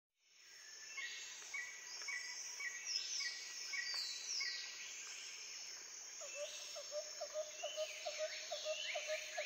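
Birds and insects calling: a steady high insect trill under repeated short bird chirps about twice a second and a few falling whistles. From about six seconds in, a lower note repeats about three times a second. The sound fades in at the start.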